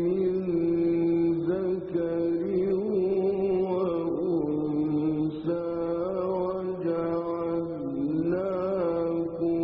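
Male Quran reciter chanting in the slow, melodic mujawwad style. He sustains long notes through the microphone and bends them into wavering ornaments.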